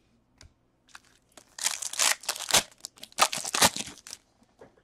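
Foil trading-card pack wrapper being torn and crinkled by hand, in a run of crackly rustling bursts from about a second and a half in until near the end.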